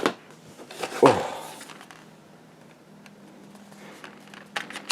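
Knocks and handling noises from the packaging of a metal dice set being opened: two sharp knocks about a second apart, then a quieter stretch with a few small clicks near the end.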